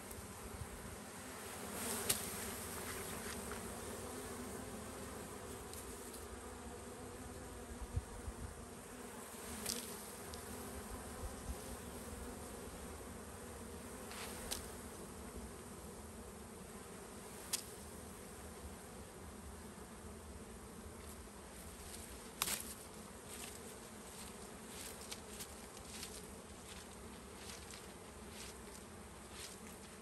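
A swarm of honey bees buzzing steadily around a wild honeycomb held in bare hands, with a few sharp clicks scattered through it.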